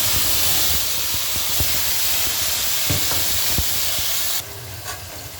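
Chopped vegetables and herbs (carrot, garlic, onion, sweet pepper, thyme) sizzling loudly as they hit hot oil in a pot, with a few light knocks. The sizzle drops off sharply about four seconds in, leaving a quieter frying hiss.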